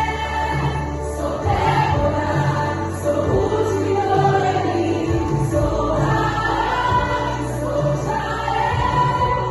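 Christian gospel song: a choir singing over instrumental backing with a steady bass line.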